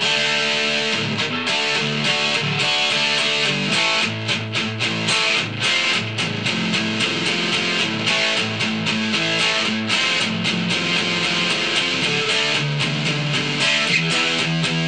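Ibanez S470 electric guitar played through its DiMarzio Blue Velvet middle pickup alone: a continuous run of picked notes and chords without a break.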